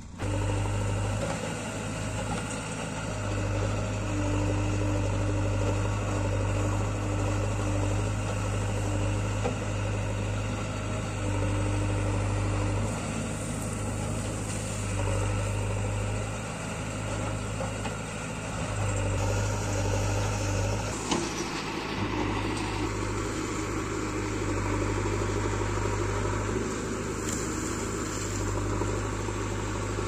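JCB 3DX backhoe loader's four-cylinder diesel engine running steadily while the machine digs, its low note growing louder and softer in stretches as the load changes.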